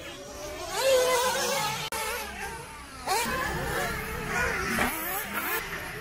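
Nitro 1/8-scale RC buggy engines revving up and down as the cars lap the track. Several rising and falling whines overlap, loudest about a second in.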